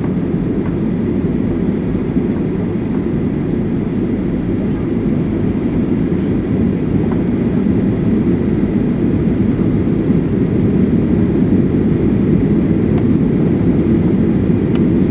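Airliner cabin noise: the steady roar of the jet engines and rushing air heard from inside the passenger cabin, growing slightly louder towards the end, with a faint thin whine above it.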